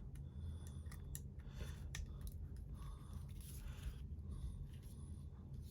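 Faint small metallic clicks and scrapes from a Roxon multitool being handled, its parts being worked and fitted back into the handle.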